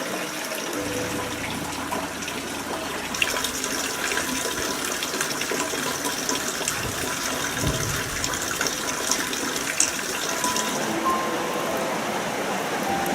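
Heavy rain pouring down, a steady rushing of water with a few small taps and clicks. Faint music comes in near the end.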